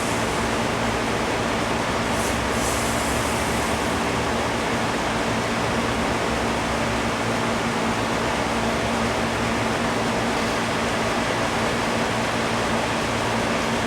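Air conditioner running full blast: a steady, even rushing noise with a constant low hum.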